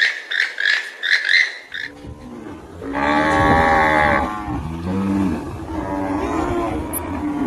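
A cow mooing: a long, loud moo about three seconds in, followed by further lower moos. Before it, rapid high mewing calls, about three a second, carry on from the previous clip and stop under two seconds in.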